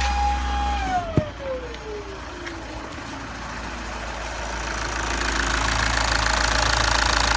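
High, steady whine from the 2009 VW Jetta SportWagen's 2.0 TDI diesel with a failing turbo, whose fins had blown apart, gliding down in pitch and fading as the engine winds down, with a sharp click just after it starts falling. A rough, rattling engine noise then builds up over the last few seconds.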